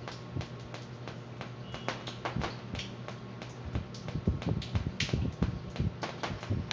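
Irregular small clicks and taps of pliers and wire handling inside a metal fan housing, over a steady low hum.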